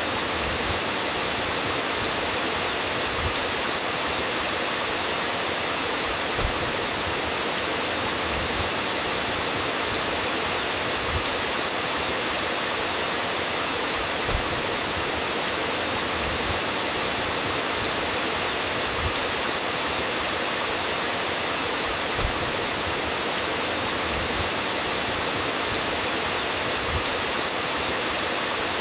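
Steady rain, an even, unbroken hiss of falling water, with a brief soft thump every few seconds. No thunder is heard.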